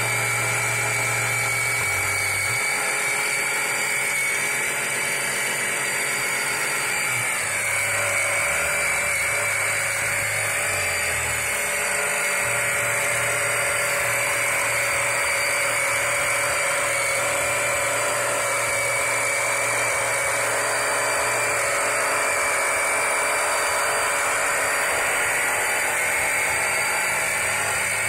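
Small 12-volt electric oil pump running, its motor giving a steady whine.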